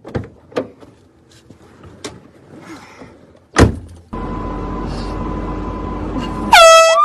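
A sharp knock, then a car's electric power window motor running steadily for about two and a half seconds with a thin whine. Near the end a loud, high-pitched shout breaks in.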